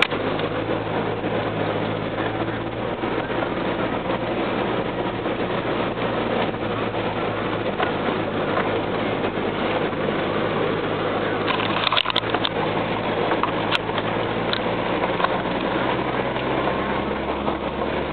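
Pickup truck driving slowly over a gravel road, heard from inside the cab: a steady low engine hum under the even noise of tyres rolling on gravel. A few sharp clicks come about twelve to fourteen seconds in.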